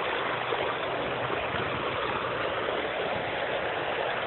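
Creek water flowing steadily over stones.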